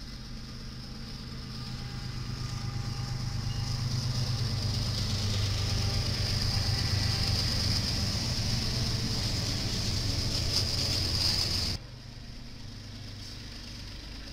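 Diesel locomotives of a BNSF freight train passing close by. The engine rumble builds over the first few seconds, holds steady and loud, then drops sharply about twelve seconds in, leaving a quieter running sound of the train.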